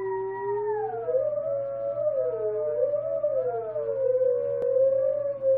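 Open.Theremin playing a polyphonic sketch: two gliding tones at once, one rising and one falling until they meet a little over a second in, then wavering and crossing around each other as the hands move over the antenna.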